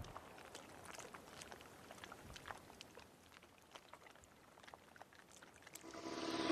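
Faint patter of water drops falling onto a water surface, an irregular scatter of small plinks and drips. Near the end a rising electronic music swell fades in.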